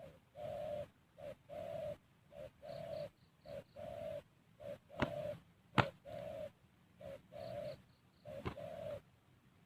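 Spotted dove cooing: a steady run of low coos in a short-then-long pattern, repeated over and over. A few sharp clicks fall in among the later coos.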